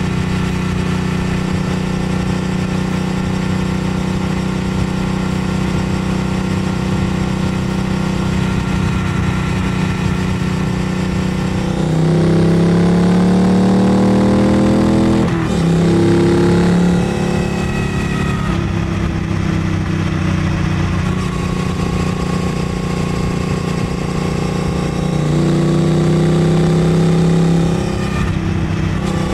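Triumph Bonneville Bobber Black's 1200 cc parallel-twin engine, fitted with a full exhaust, running steadily at cruising speed. About twelve seconds in it accelerates, rising in pitch and getting louder. The pitch dips sharply once, climbs again and then settles back to a steady cruise. It pulls harder again briefly near the end.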